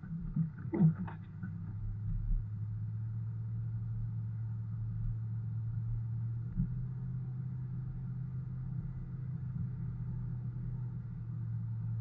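A car driving, heard from inside the cabin: a steady low engine and road hum, with a few short knocks in the first second or so.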